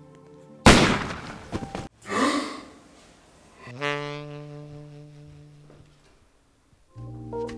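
Edited sound effects: a loud bang that cuts off abruptly, a falling whoosh, then a ringing metallic hit that fades over about two seconds, with background music returning near the end.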